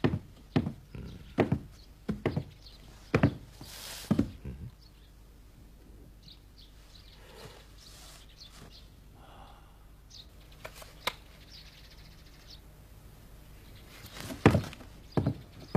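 Footsteps on a steep wooden ladder: a run of hollow thunks on the rungs over the first few seconds, a quieter stretch with a few faint knocks, then another quick run of steps near the end as someone comes back down.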